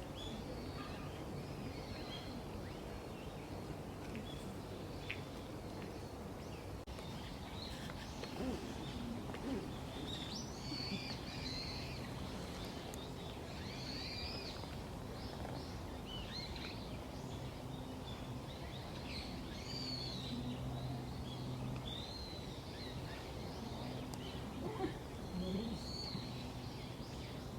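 Small birds chirping on and off, short arching calls repeated through the stretch, over a steady outdoor background hum.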